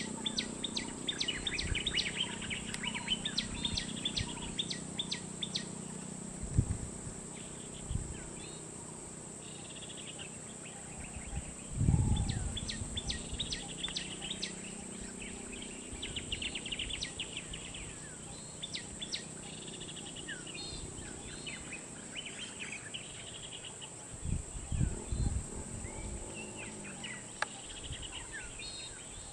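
Birds chirping in quick runs of short repeated calls, over a low hum that fades in the first few seconds. A few dull low thumps break in, the loudest about twelve seconds in.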